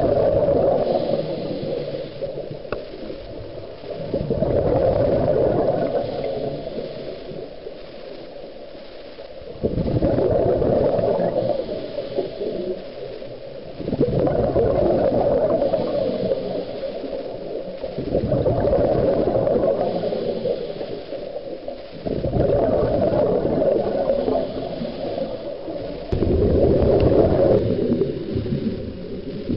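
Scuba regulator exhaust bubbles from a diver's breathing, heard underwater: a low bubbling gurgle about every four to five seconds, each burst two to three seconds long, with quieter pauses between breaths.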